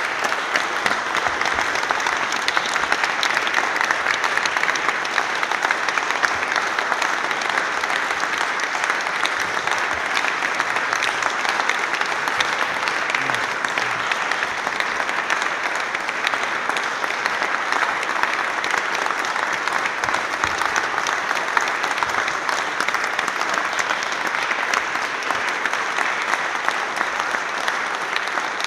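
Audience giving a standing ovation: dense, sustained clapping at an even level.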